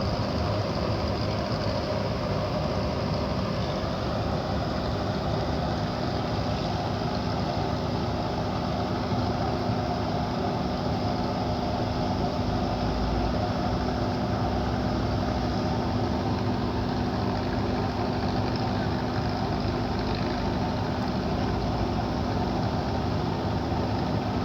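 Ship's engine running steadily, a constant drone with a steady low hum through it.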